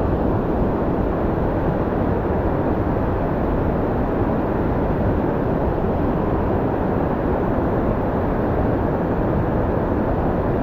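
A steady, even rush of river water over rocky shoals.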